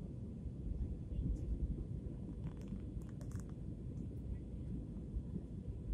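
Steady low rumble of an airliner cabin in flight on descent: jet engine and airflow noise heard through the cabin wall, with a faint steady hum. A few faint clicks come about halfway through.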